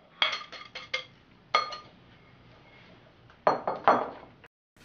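Glass bowl knocking against the rim of a plastic mixing bowl as flour is tipped out: a quick run of sharp clinks with a short glassy ring in the first second, two more about a second and a half in, then a cluster of duller knocks about three and a half seconds in.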